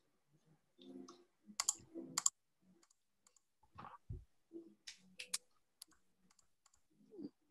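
A few faint, sharp computer clicks from a keyboard and mouse, several coming in pairs, with a soft thump about four seconds in.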